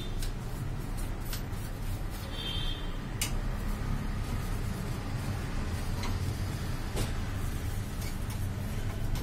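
Plastic parts of a Xerox WorkCentre copier being handled as an internal assembly is slid out of the open machine: a few sharp clicks and a brief squeak, over a steady low rumble.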